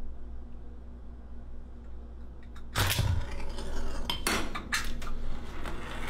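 A low steady hum, then about three seconds in a chain-reaction contraption sets off: a tennis ball rolls and drops along aluminium channel tracks, with a run of metallic rattling, knocks and clinks.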